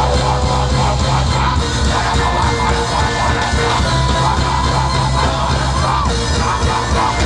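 Loud music with a heavy, steady bass beat and a voice singing and shouting over it, played through a concert sound system.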